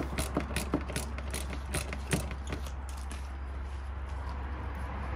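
Screwdriver clicking as it works a star-drive (Torx) screw out of a car's plastic front bumper: about three sharp clicks a second that stop about halfway through, over a steady low hum.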